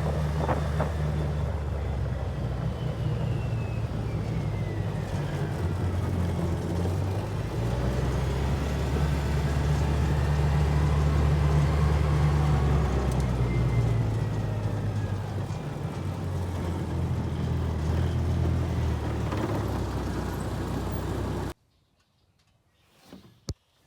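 Polaris Ranger XP 700's twin-cylinder engine running steadily, swelling somewhat in the middle, after its TBAP sensor and throttle body have been cleaned. The sound cuts off suddenly near the end, leaving near silence and one brief click.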